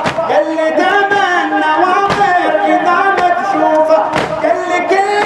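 Male voices chanting a Shia mourning latmiyya together, with a sharp thump about every two seconds keeping the beat: the chest-striking (latm) of the procession.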